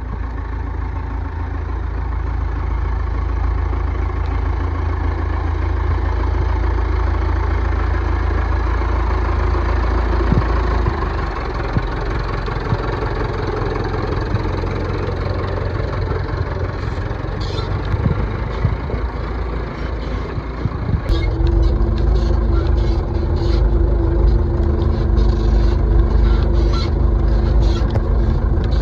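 Tractor engine running with a deep, steady rumble. About two-thirds of the way through it gets louder and settles into a steady drone, with light rattling clicks over it.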